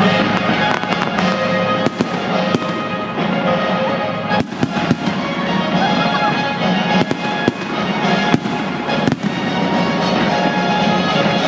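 Fireworks going off in a rapid, irregular string of sharp bangs and crackles over loud music. A cluster of bangs comes about four and a half seconds in, and a single strong bang comes near nine seconds.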